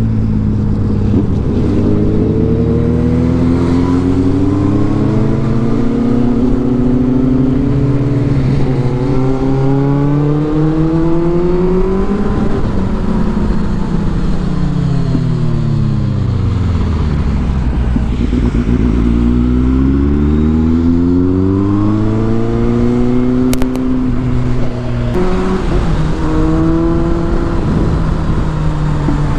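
Kawasaki Z800 inline-four motorcycle engine heard from the saddle, pitch climbing as it accelerates for about ten seconds, dropping steeply as it slows in the middle, then climbing and holding again. Wind and wet-road noise run underneath.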